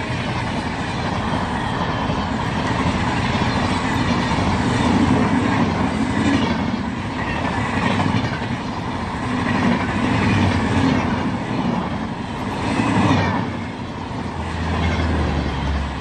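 Express train coaches passing close by at speed: a steady rush of wheels on rails with a repeated clatter. About thirteen seconds in, the last coach clears and the sound falls to a low rumble.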